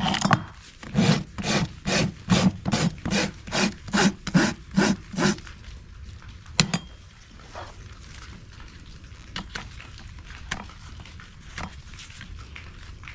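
Farrier's steel hoof rasp filing a horse's hoof in quick, even back-and-forth strokes, about three a second, stopping about five seconds in. Then one sharp click, followed by faint light scraping.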